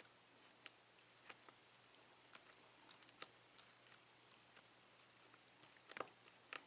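Faint, scattered clicks of a lock pick working the pins of a Yale six-pin mortise cylinder under tension, one or two a second, with a sharper click about six seconds in. This is single-pin picking with the cylinder sitting in a deep false set.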